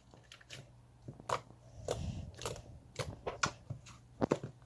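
A series of short, sharp clicks and taps, irregularly spaced, with a brief rustle about two seconds in.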